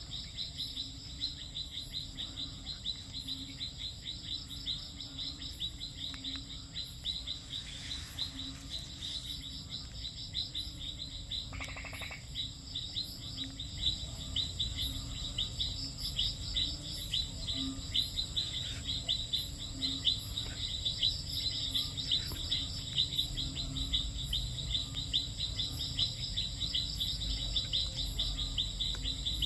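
Night-time chorus of crickets and other insects: a rapid pulsed trilling that runs on without a break, with a steady high-pitched whine and regular ticks above it. A low rumble grows in the second half.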